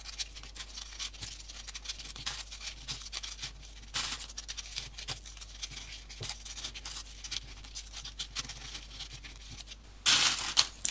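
Folded paper origami units being handled and slotted into a paper base: many small paper clicks and rustles, with a louder rustle about ten seconds in.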